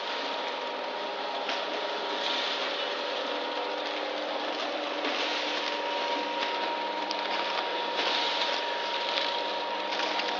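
Automatic vertical sachet packing machine running as it fills and seals sugar sachets: a steady mechanical hum with a brighter rush of noise about every three seconds.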